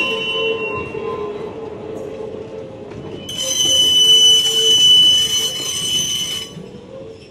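Open excursion cars of a narrow-gauge passenger train rolling past, their steel wheels squealing on the rails over a rumble of wheels. A high squeal dies away in the first second, and a louder high squeal starts about three seconds in and cuts off about three seconds later.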